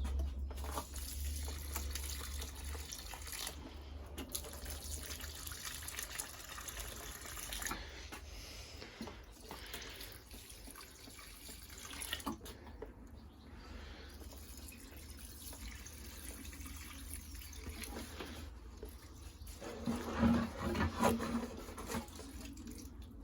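Liquid tomato feed being poured onto tomato plants, a steady trickle and splash of water. A few louder knocks near the end.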